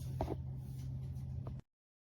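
Low steady hum of a small water pump running, with a couple of soft knocks about a quarter of a second in. The sound cuts off abruptly shortly before the end.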